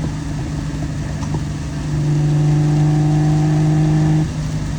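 Inside a moving car in heavy rain: steady rain and road noise, with the engine droning at a constant pitch that grows louder from about two seconds in and drops back just after four seconds.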